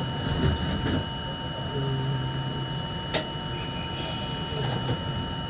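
Subway train standing at an elevated station: steady electrical hum with a few fixed whining tones from the car's equipment, and one sharp click about three seconds in.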